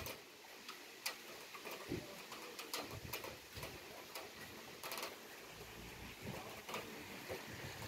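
Rain dripping: scattered drops ticking irregularly on a hard surface close by, over a faint steady hiss of rain.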